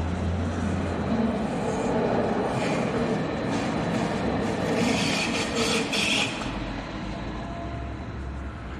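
Rhaetian Railway passenger train moving off and rolling past with a steady rumble of wheels and cars. It grows louder through the middle, with a brief brighter, higher-pitched swell about five seconds in, then fades near the end.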